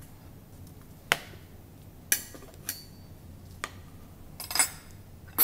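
Metal fork clinking and scraping against a glass baking dish while serving a cheese-topped casserole onto a plate: a handful of separate sharp clinks with a short ring, irregularly spaced, with a quick cluster near the end.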